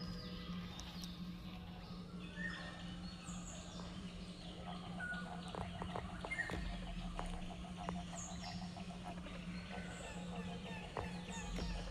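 Several birds calling in a forest: scattered short chirps and quick falling whistles, with a run of rapid ticking calls midway, over a steady low hum.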